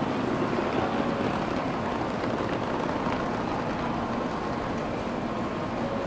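Steady ambient din of an open-sided Shinkansen station platform: a continuous low rumble and hiss with a few faint steady hums, unchanging throughout.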